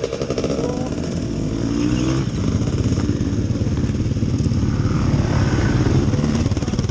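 Yamaha YZ250 two-stroke motocross engine running at idle close to the microphone, a steady rapid putter.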